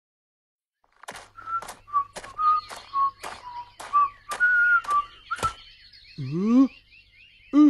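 A cartoon character whistling a cheerful tune while walking, with sharp footstep clicks about two a second. The whistling and steps stop about five and a half seconds in, and a short rising vocal 'huh?' follows.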